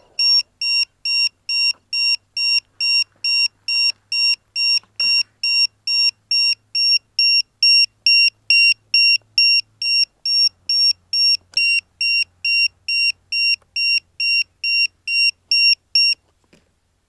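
Electronic buzzer on an F450 quadcopter beeping in a steady rhythm, a little over two short high beeps a second, then stopping.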